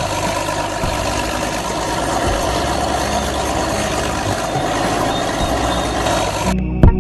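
A vehicle engine running steadily with a low throb, cutting off suddenly near the end.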